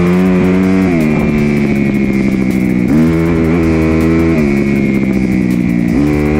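2019 Kawasaki KX250 single-cylinder four-stroke dirt bike engine being ridden, its pitch climbing and dropping with the throttle several times.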